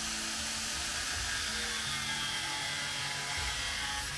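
Background music with a stepping bass line, and under it the faint steady whine of an angle grinder cutting a drain pipe.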